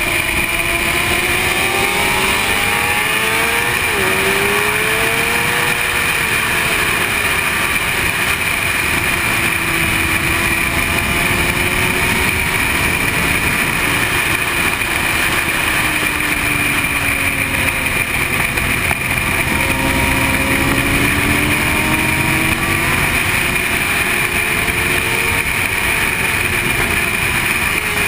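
Sport motorcycle engine under way at speed, its note rising and falling with gear changes and throttle through the corners, with a sharp change in pitch about four seconds in, all over a steady rush of wind noise.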